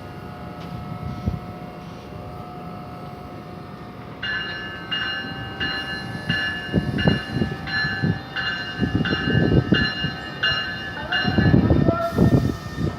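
A passenger train at the station, with a bell ringing about twice a second from about four seconds in until shortly before the end. A heavy low rumble of the train and wind swells through the second half.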